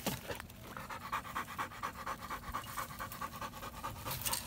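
A pit bull panting rapidly, an even run of quick breaths, several a second.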